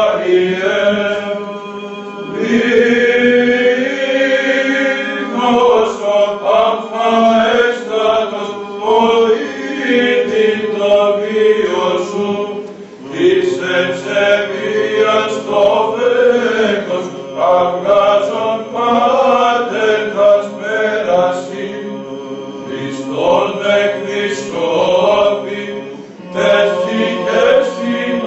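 Small group of male cantors singing Greek Orthodox Byzantine chant in unison, with long melismatic phrases over a steady low held drone (ison). The phrases pause briefly about halfway through and again near the end.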